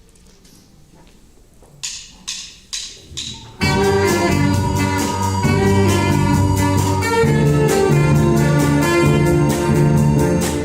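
Four sharp clicks counting in, then a youth orchestra starts playing together with sustained chords over a steady bass line.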